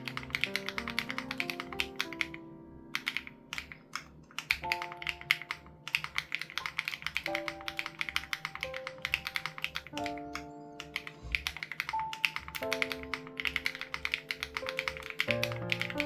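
Rapid typing on a custom mechanical keyboard, an SPM AL87B with BSUN Raw switches and its sound-dampening foam removed: a quick, uneven run of key clacks with a few short pauses. Soft background music with held chords plays underneath.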